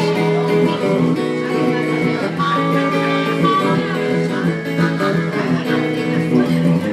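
Electric guitar and harmonica playing a tune together, with held chords and a melody line over them.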